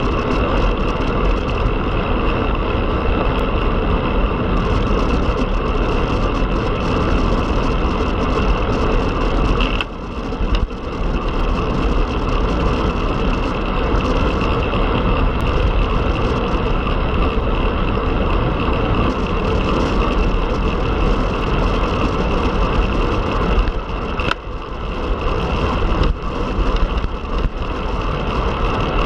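Steady wind rush buffeting the microphone, with tyre and road noise, from a road bike ridden at speed. It eases briefly about ten seconds in and again near the end.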